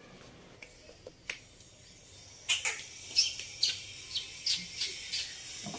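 A run of sharp snapping clicks, about three a second, starting about two and a half seconds in.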